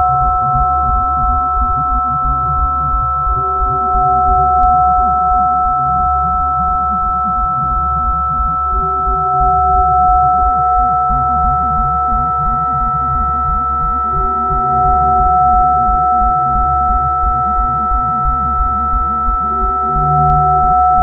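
Electronic tape music: several steady sine tones held together over a dense, rapidly pulsing low drone, with short mid-range tones recurring every few seconds. About halfway through, a higher tone and another lower tone join the chord.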